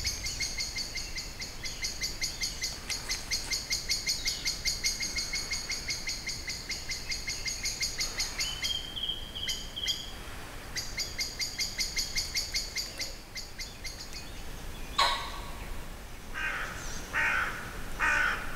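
Woodland birds calling: a bird repeats a high squeaky chirp several times a second, with a thin steady whistle breaking in briefly midway. Near the end come a few louder, harsher, lower calls.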